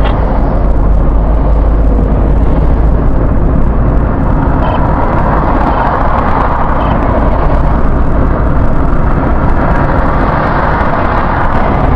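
Car interior road noise while driving on a highway: a steady mix of engine and tyre noise as the car speeds up, growing a little brighter about halfway through.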